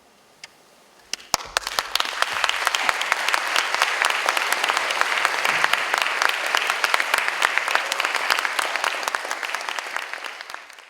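Audience applauding, starting with a few scattered claps about a second in, swelling quickly into steady applause, and fading near the end.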